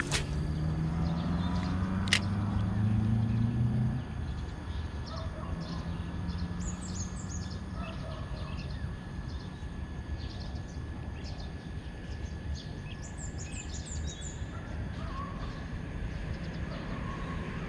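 Outdoor ambience: a motor vehicle's engine hum rising in pitch for the first four seconds, then a steady background hiss with small birds chirping in two short bursts, about seven and fourteen seconds in. Two sharp clicks come near the start.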